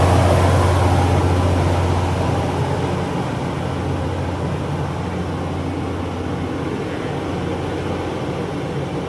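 A train running: a steady low mechanical drone with a strong hum. It eases down over the first few seconds, then holds steady.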